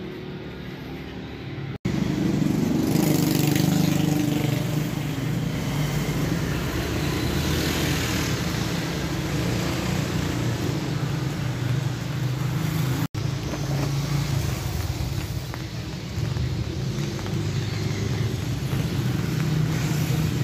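Steady motor-vehicle noise that drops out for an instant twice, about two seconds in and again about thirteen seconds in.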